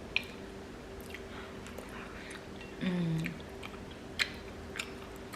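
Close-miked chewing with scattered wet mouth smacks and clicks, and a short closed-mouth 'mm' hum about three seconds in.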